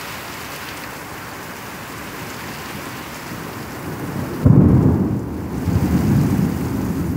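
Heavy rain falling steadily, then a little over halfway through a sudden loud, low rumble of thunder that keeps rolling.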